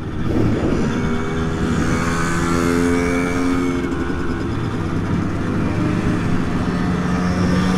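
Small two-stroke Simson moped engines running on the road, one engine's pitch rising and then falling near the middle as a moped goes past.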